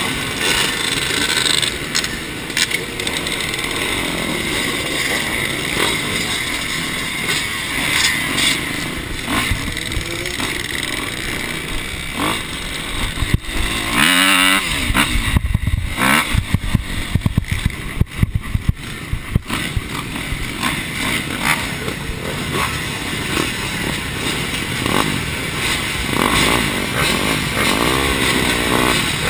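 Several motocross dirt bike engines idling and revving together close around the camera bike. About halfway through, the sound turns louder and choppy while the bike is ridden across the dirt track.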